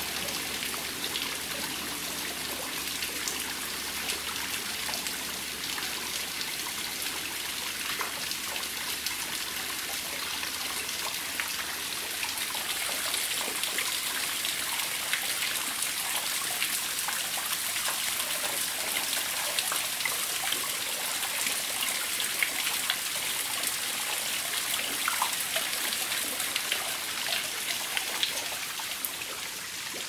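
A thin waterfall trickling and splashing down a rock face into a shallow pool: a steady patter of falling water with many small drips.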